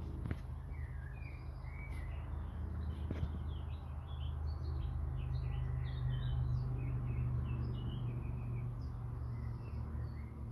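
Birds chirping and singing in many short, overlapping calls, over a steady low rumble.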